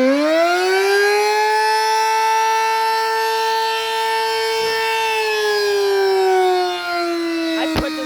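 Sterling Model M electromechanical outdoor warning siren sounding a wail. Its pitch climbs quickly over the first second and a half, holds steady for a few seconds, then slowly falls. There is a short sharp knock near the end.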